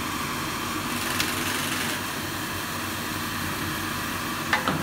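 A powder shaking machine's centrifugal blower and cooling fan running steadily with a constant rush of air. There is a light click about a second in and two more near the end.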